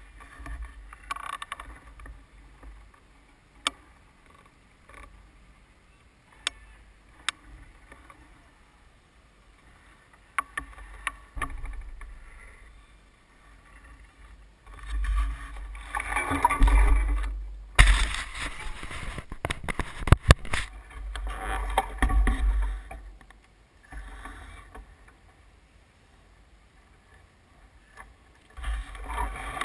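Wind buffeting the microphone of a bicycle-mounted action camera in gusts, with scattered single sharp clicks and rattles. Louder noisy stretches come about halfway through and again near the end.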